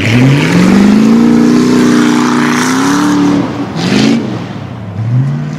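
Car engine revving hard: the revs climb quickly, hold high for about three seconds with a rushing noise over them, drop, then rise briefly twice more.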